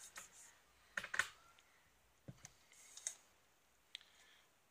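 About half a dozen light, sharp clicks and taps, irregularly spaced: small hand-work on the guitar as it is opened up, parts or a tool knocking against the body.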